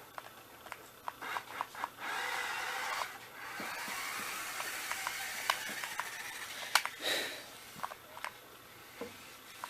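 Toy remote-control cars running on a hard floor: a scraping, rubbing rush from about two to seven seconds in, with scattered clicks and knocks throughout.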